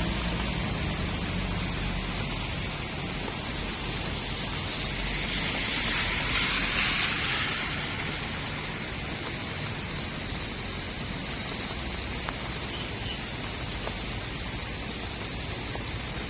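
Steady rain falling on a street, an even hiss, which swells louder for a few seconds about five seconds in.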